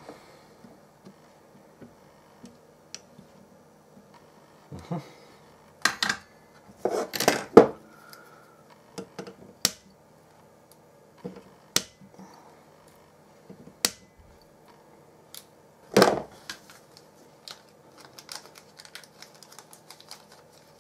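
Cutters snipping excess component leads on a soldered circuit board: sharp single snips every couple of seconds, about half a dozen in all, with small clicks of tools and parts being handled near the end.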